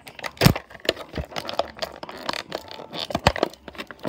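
Clear plastic packaging crinkling and crackling as a toy carbine accessory is worked out of it, with scattered sharp clicks and knocks, the loudest about half a second in and again a little after three seconds.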